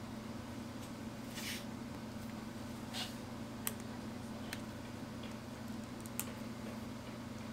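Quiet handling of laptop-box contents, a USB-C charging cable and paper inserts: two soft rustles and three sharp little clicks over a steady low hum.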